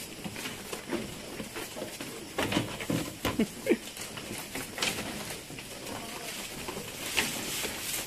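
Goats feeding on fresh Napier grass: leaves rustling and stalks snapping as they tug and chew, with a cluster of louder snaps and knocks about halfway through.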